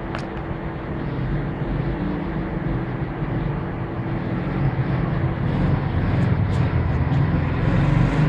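Small quad bike (ATV) engine running steadily and getting gradually louder as it comes closer.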